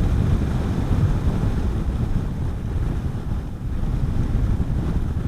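Wind buffeting the microphone of a moving motorcycle, a steady low rumble of rushing air.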